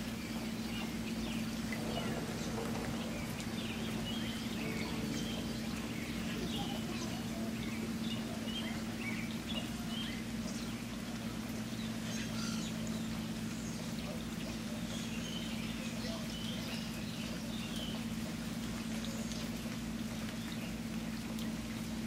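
Birds chirping in short, scattered calls over steady running water, with a steady low hum underneath.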